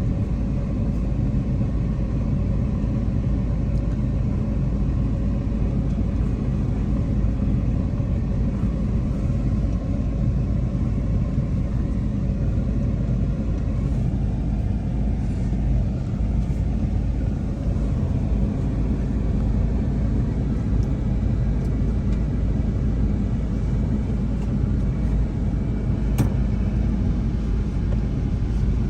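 A car driving, heard from inside: steady engine and road rumble at an even level throughout, with a single brief click near the end.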